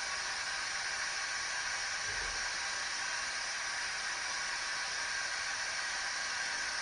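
Steady hiss of static with no pattern to it, and a faint low thump about two seconds in.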